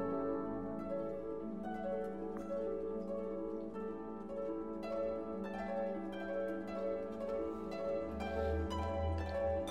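Background music: a light melody of plucked strings, harp and pizzicato, with a low bass swelling in near the end.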